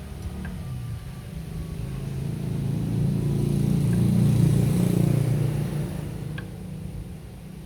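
A motor vehicle passing by: its engine sound swells to a peak about four seconds in and then fades away.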